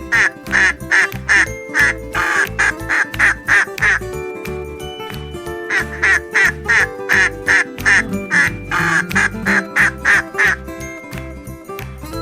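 Duck quacking in quick runs of calls, a few per second, over background music with a steady beat; the quacking pauses for about a second and a half around four seconds in.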